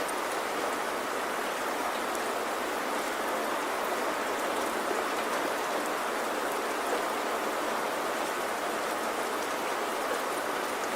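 Steady rain falling, an even hiss of drops with faint scattered patter on top.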